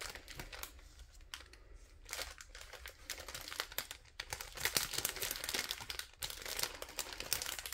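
Plastic packaging crinkling and rustling as it is handled, with a brief lull about a second in and busier crackling in the second half.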